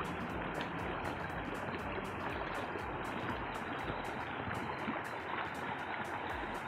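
Fast-flowing mountain stream rushing over stones: a steady, even rush of water.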